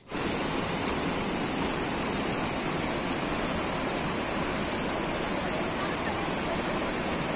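Steady, even rush of flowing water from the falls and its stream.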